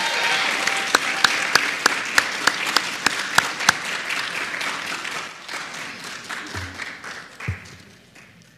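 Audience applauding, with one clapper standing out as loud, sharp claps about three times a second for the first few seconds; the applause dies away near the end.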